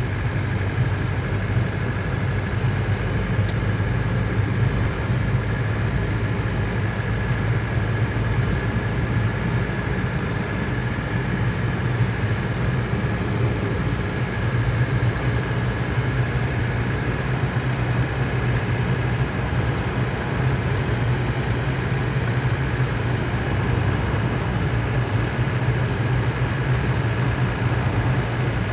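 A car's engine and tyre noise heard from inside the cabin while cruising: a steady low hum with road rush, unchanging throughout.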